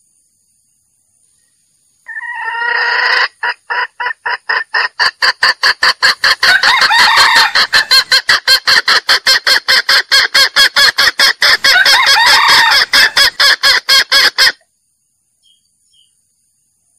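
Male junglefowl clucking in a long, rapid, even series of about four to five calls a second. It starts about two seconds in and stops abruptly near the end. It is a call recording used to lure wild roosters into a trap.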